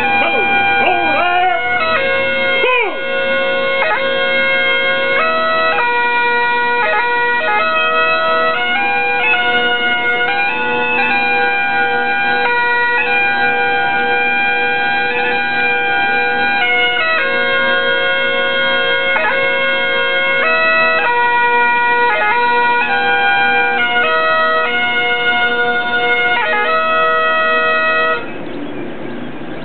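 Bagpipe playing a slow tune: a melody of held notes over a steady drone. It stops abruptly near the end.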